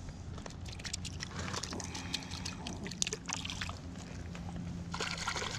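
Creek water sloshing and splashing lightly at the edge of the shallows as a hand lets a sunfish go, with scattered small clicks and crunches of gravel.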